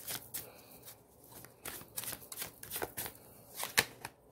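A tarot deck being shuffled by hand: a quick, irregular run of card snaps and slaps, with one sharper snap a little before the end as a card is pulled from the deck.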